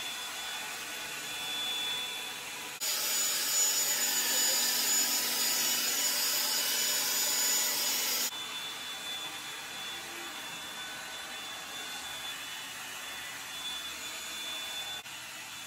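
Revlon One Step hot-air brush dryer running on its highest setting, a steady rushing blow with a thin high whine. About three seconds in it turns louder and hissier, then drops back about five seconds later.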